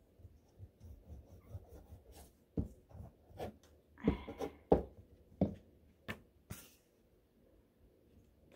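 Glue stick rubbed across construction paper in short scratchy strokes, then several light knocks and clicks and a brief paper rustle as the stick is handled and stood on the glass tabletop and the paper is picked up.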